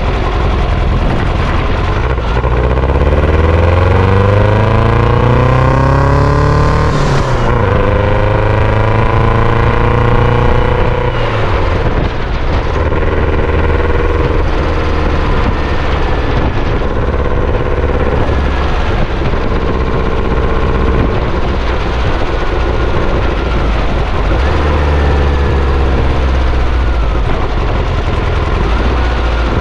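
Sand buggy engine accelerating hard through the gears, its pitch climbing, then dropping sharply at shifts about seven and eleven seconds in. It runs at steadier revs for a while, then climbs again near the end.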